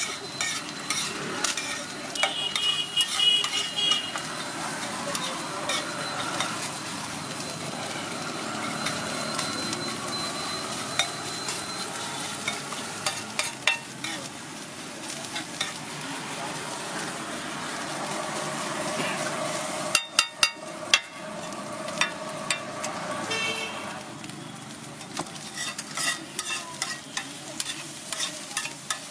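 Scrambled egg frying and sizzling on a hot griddle, stirred and chopped with a metal spatula that scrapes and taps the pan over and over, with a burst of quick hard taps about twenty seconds in.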